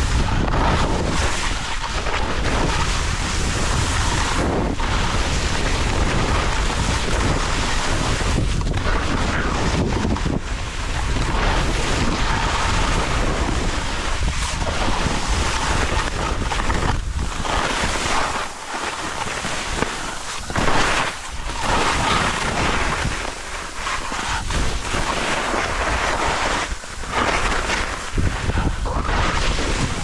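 Skis hissing and scraping through soft spring corn snow on a fast descent, with wind buffeting the microphone; the hiss swells and eases every second or two as the skier turns.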